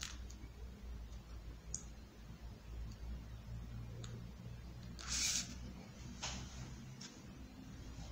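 Faint rustling and light clicks of fingers pressing EVA foam petals against a foam ball, with a louder scraping rustle about five seconds in, over a low steady hum.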